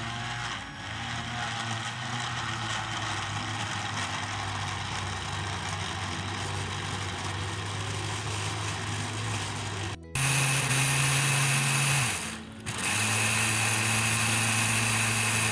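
Electric countertop blender with a glass jar running, chopping mango chunks into puree. It runs steadily, stops briefly about ten seconds in, then restarts louder and higher-pitched, with one more short stop a couple of seconds later.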